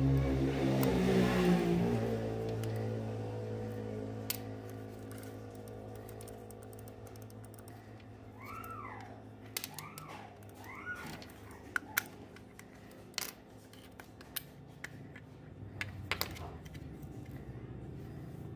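Sharp plastic clicks and taps, several spread out and unevenly spaced, from a wireless computer mouse being handled and turned over. A tail of background music fades out over the first few seconds, and three short rising-and-falling whistle-like notes come about halfway through.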